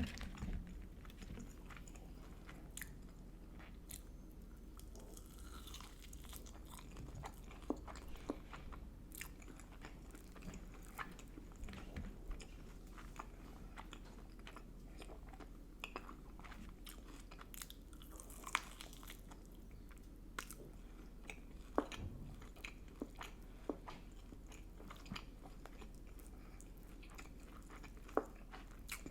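Close-miked chewing and biting of food, with irregular sharp mouth clicks and crunches over a faint low hum.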